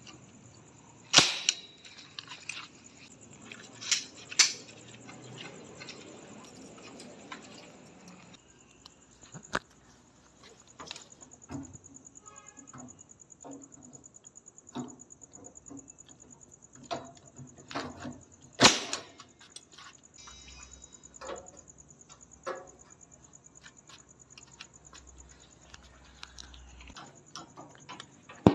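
Manual nail gun firing nails through a perforated metal strip into concrete: a handful of sharp cracks, about a second in, twice close together around four seconds, once near ten seconds and loudest at about nineteen seconds, with smaller clicks and knocks between.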